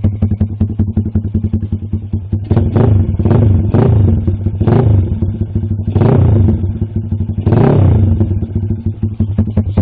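Lifan KP Mini 210cc big-bore single-cylinder engine running through an SC Concepts racing can, steady at first. From about two and a half seconds in, it revs up and drops back about six times.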